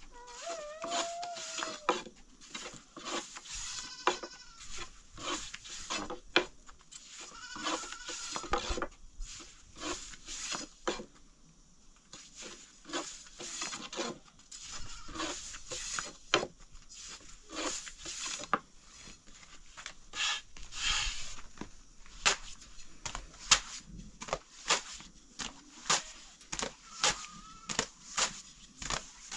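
Goats bleating several times in the first half and once more near the end, over many sharp taps and knocks that come more regularly in the second half.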